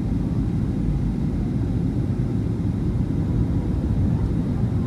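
Steady low cabin rumble of a Boeing 737-900ER in flight: its CFM56-7B engines and the airflow past the fuselage, heard from inside the cabin at a window seat.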